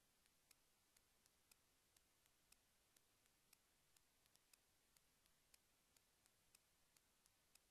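Near silence, with faint sharp ticks at an even pace, about two to three a second.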